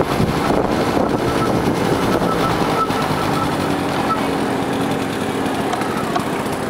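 Small motor scooter engines running at low speed as the scooters ride slowly and pull in to the curb.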